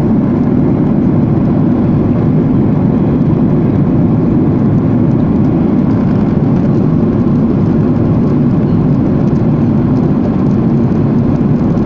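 Airliner cabin noise at cruise: the jet engines and rushing airflow heard from a window seat as a loud, steady low rumble that does not change.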